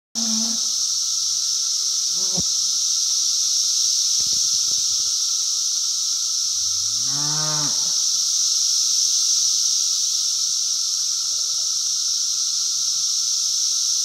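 Loud, steady high-pitched drone of a cicada chorus. About seven seconds in, a cow moos once, a call about a second long that rises and falls in pitch.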